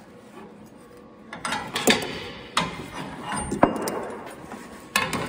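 The metal hook and ratchet buckle of a cargo strap clinking and knocking against a steel deck frame as the strap is handled and fed underneath. There are several separate sharp clicks and clanks, with some rustling between them.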